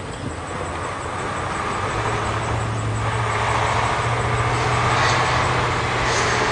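A motor vehicle approaching along the road, its engine hum and tyre noise growing steadily louder, then cutting off suddenly near the end.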